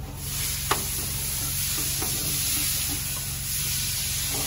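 Steady hiss over a low hum, with one sharp click under a second in.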